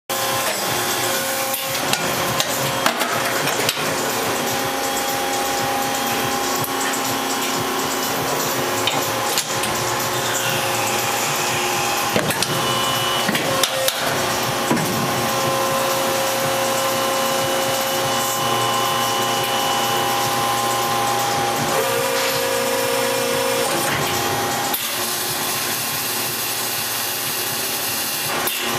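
Injection moulding machine running: a steady mechanical hum and whine holding several tones, with scattered sharp clicks and knocks. The tones shift a little about two-thirds of the way through.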